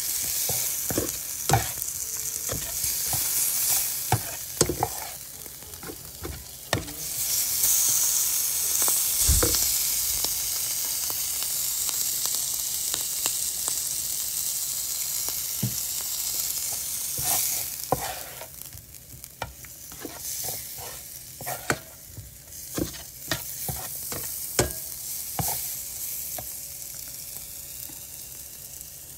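Shrimp sizzling as they fry in a pan, stirred with a utensil that knocks and scrapes against the pan many times. The sizzle is strong through the first half and dies down in the second half, leaving mostly the stirring knocks.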